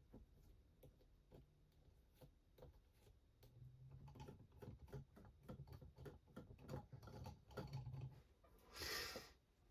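Near silence with faint, irregular clicks and taps of small plastic shock parts being handled, and a short hiss near the end.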